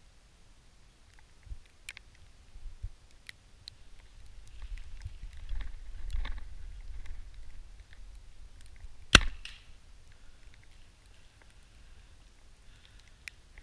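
A compound bow is shot: one sharp snap of the string and limbs about nine seconds in. Before it comes a few seconds of soft rustling of clothing and gear as the bow is raised and drawn.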